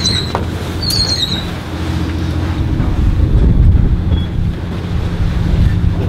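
Steady low rumble and hum of a sailing cargo ship under way, with wind on the microphone. Twice in the first second and a half a short high squeak glides downward: a rope block squeaking as deck crew haul a line.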